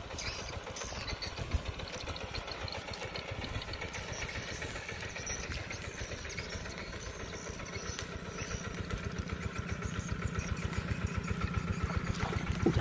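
Single-cylinder diesel engine of a homemade rice harvester built from a two-wheel hand tractor, running with a rapid, even beat. It grows louder over the last few seconds as the machine drives up close.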